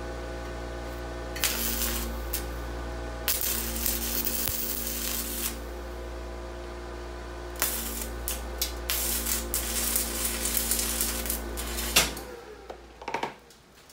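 Stick welding with 7018 rods on a DEKOPRO 110-volt inverter welder: the arc crackles and hisses in three runs, the last and longest lasting about four seconds, over a steady hum from the running air compressor. About twelve seconds in, the arc and the hum cut off abruptly as the breaker trips, overloaded by the welder at about 110 amps together with the compressor on one 110-volt circuit.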